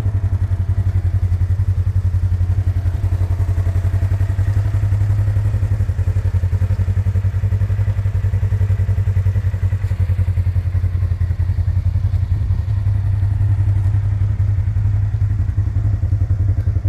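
2020 Polaris RZR XP 4 1000 side-by-side's 999 cc parallel-twin engine idling steadily with an even, fast exhaust pulse.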